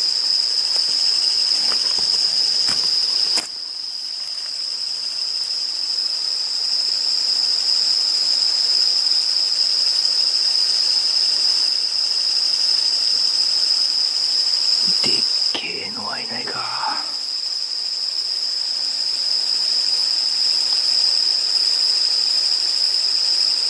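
Steady, high-pitched trilling chorus of night-singing insects that runs unbroken. It dips a little in level a few seconds in, and other faint noises break in briefly about two-thirds of the way through.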